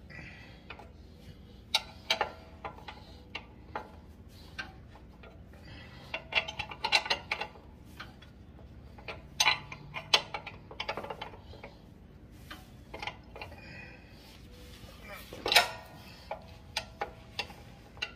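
Wrench working the nut on the threaded engine-pull bar of a Dixie Chopper mower, tightening the drive belt: irregular metallic clicks and clinks, with one louder clank late on.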